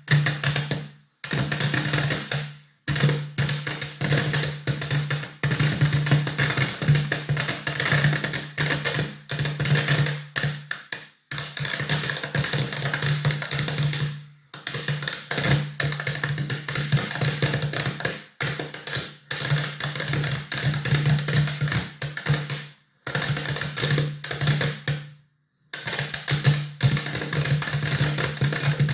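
A long crackle-whip firework string going off: a loud, rapid, dense crackle of tiny pops. It stops dead several times for a moment, then picks up again.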